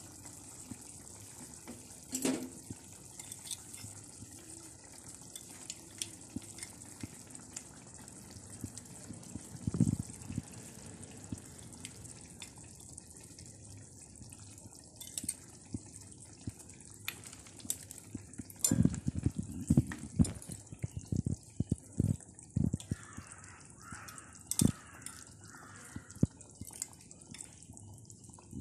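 Fish curry simmering in a clay pot, a steady soft bubbling with the odd plop as chunks of fish go into the liquid. From about two-thirds of the way through, a quick run of clicks and knocks as a metal spoon and wooden spatula work against the pot.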